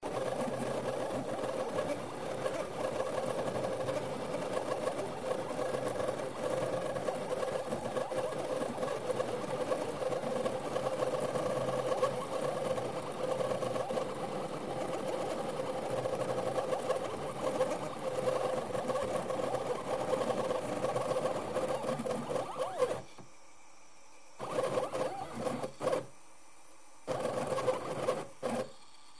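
CNC milling machine's axis motors running as they move a spring-mounted pen through a drawing, a steady hum with a constant mid-pitched tone. From about 23 seconds in, the motion stops several times, leaving short gaps of about a second.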